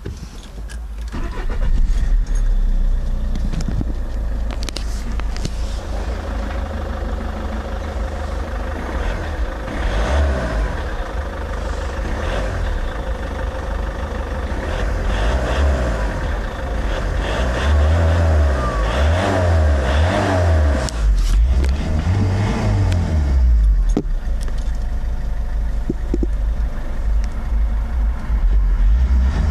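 Peugeot 307 SW's 2.0 HDi four-cylinder turbodiesel revved and held at around 3000 rpm, with turbo whistle. It rises over the first two seconds, then runs on with the revs wavering up and down.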